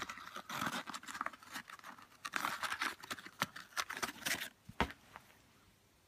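Paper and card shoe insert rustling and scraping against the leather as it is pushed into a sneaker, in a quick run of crinkles and small clicks, with one short sharp knock near the end before it goes quiet.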